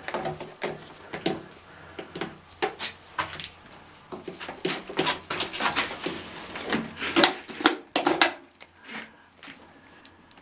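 Grey plastic drain-pipe fittings being handled and pushed together: a run of knocks, clicks and scraping rubs, loudest about seven to eight seconds in and thinning out near the end.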